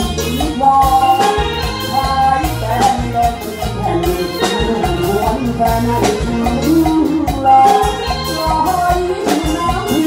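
Thai trae wong band playing a lively instrumental tune over a steady drum beat.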